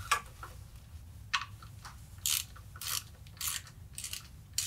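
Ratchet wrench clicking in several short bursts, about half a second apart, as the ground-wire nut on the motor's wiring bracket is loosened.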